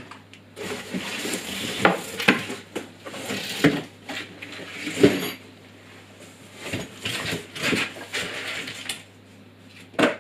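Cardboard packaging and a boxed part being pulled out and handled: irregular scraping and rustling with several sharp knocks and rattles, the loudest about five seconds in.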